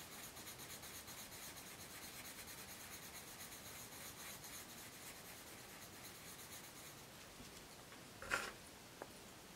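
Colored pencil scribbling back and forth on paper to fill in a swatch: faint, rapid scratchy strokes that stop about seven seconds in, followed by a short knock about a second later.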